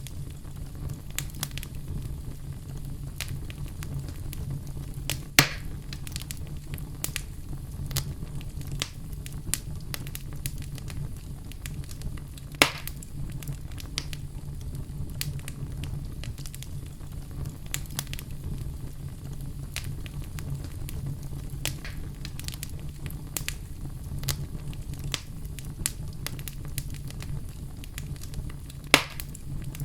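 Campfire crackling: a steady low rumble of burning wood under scattered sharp crackles, with three louder pops, about five seconds in, about twelve seconds in and near the end.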